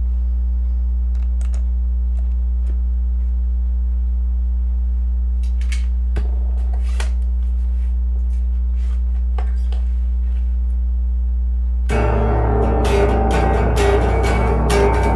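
A steady low hum with a few faint clicks and knocks as an electric guitar is picked up. About twelve seconds in, loud music with guitar starts: the instrumental intro of a country song.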